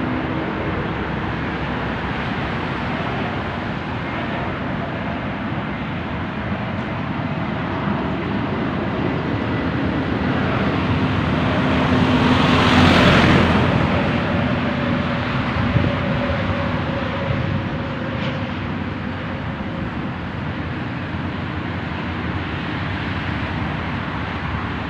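Steady road traffic noise, with one vehicle growing louder as it passes about halfway through and then fading.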